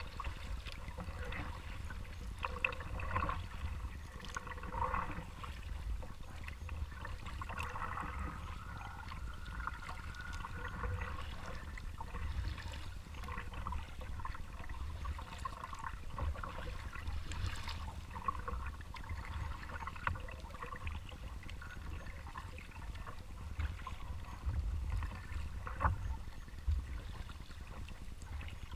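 Water trickling and dripping off a kayak paddle and splashing lightly as the blades dip, in small irregular splashes over a low rumble.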